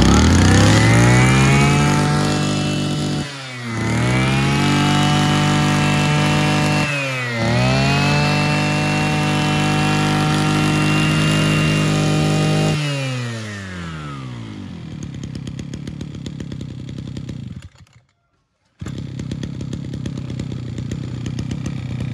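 Mitsubishi TL33 33cc two-stroke brush cutter engine revving up to high speed and holding it, with two brief throttle dips. About 13 seconds in, the engine slows back to idle. After a one-second break in the sound, the idle resumes.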